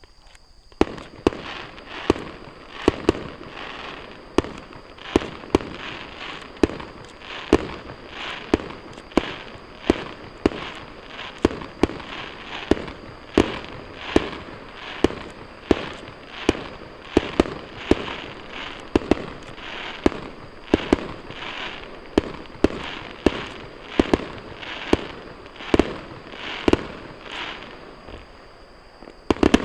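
Aerial fireworks shells bursting in a rapid, steady series, about one or two sharp bangs a second with a short echo after each, starting about a second in. A steady high chirring of autumn crickets runs underneath.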